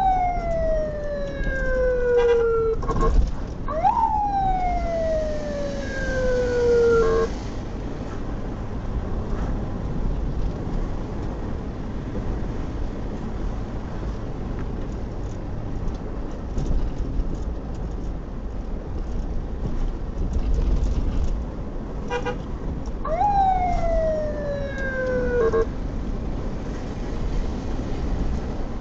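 Ambulance siren giving short whoops: three in all, near the start, about four seconds in and about 23 seconds in. Each is a quick rise then a slow falling tone lasting a couple of seconds. Steady engine and road noise from the moving vehicle runs underneath.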